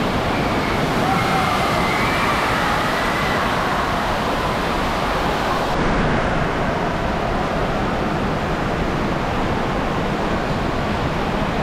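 Steady rush of water pouring and splashing from water-park play structures into the pool, with children's voices faint in the first few seconds.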